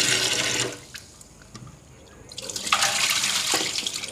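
Tap water splashing into a small iron kadai of salted raw prawns in a steel sink, stopping after about a second. About two seconds in, water sloshes and pours off again as the pan is tipped and the prawns are rinsed by hand.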